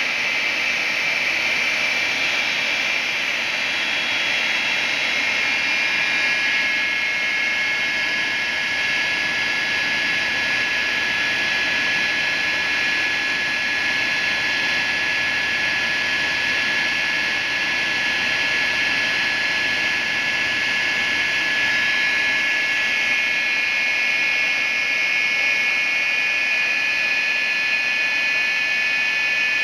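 Converted GE J79 turbojet running steadily on a test stand: a wide rush of air under a steady whine of several high tones.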